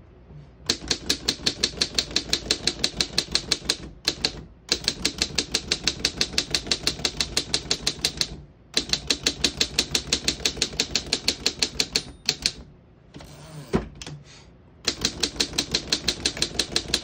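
1914 Underwood No.5 manual typewriter keys being struck in quick, even runs of about eight strokes a second, four runs with short pauses between, and one heavier single clack a little after the middle. The keys strike cleanly, none of them sticking.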